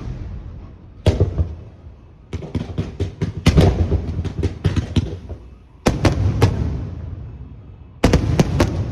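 Aerial fireworks shells bursting: a single bang about a second in, a rapid string of bangs from about two to five seconds, another heavy bang near six seconds, and a new cluster near the end, each bang trailing off in a rumbling echo.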